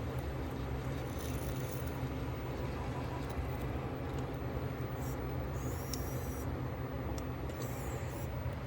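JVC compact VHS camcorder playing back a tape: a steady low hum with hiss, broken a few times by short high-pitched crackly hiss.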